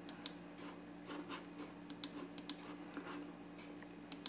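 Faint, irregular clicks and light taps, a dozen or so scattered through the pause, over a steady low hum.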